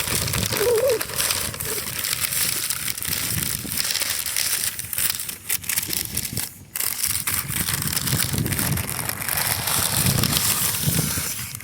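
Strong wind buffeting the microphone in gusts: a rough low rumble under a steady hiss that swells and eases, dropping briefly about two-thirds of the way through.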